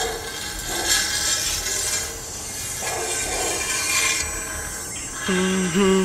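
A steady, loud rasping, scraping noise with slightly louder swells about once a second. About five seconds in, a drawn-out, wavering voice-like sound comes in over it.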